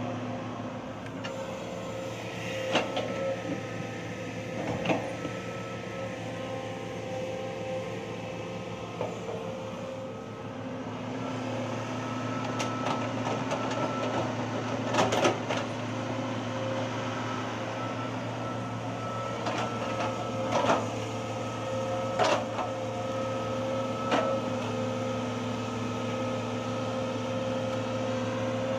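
Heavy diesel machinery running steadily while a Hitachi hydraulic excavator loads earth into dump trucks, with a constant engine hum. Several sharp clunks and knocks sound at intervals, clustered in the second half.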